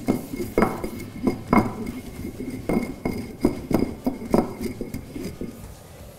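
Upturned drinking glass knocking and clinking against the work surface as it is swirled in circles over a ball of yeast dough to round it: about a dozen short, irregular knocks that thin out near the end.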